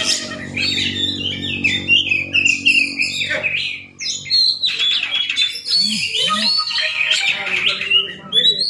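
Oriental magpie-robin singing a fast, varied song of chirps and whistles, with a brief break about four seconds in.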